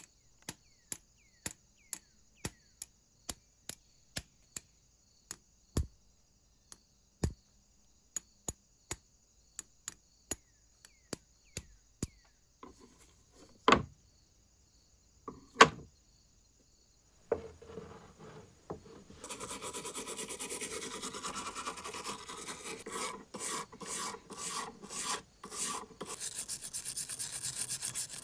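A hammer tapping a punch to drive out the pivot rivet of rusty antique scissors: a run of light metal taps at about two to three a second, with two harder blows near the middle. Later a brush scrubs a scissor blade wet in a tray of rust converter, in repeated scraping strokes.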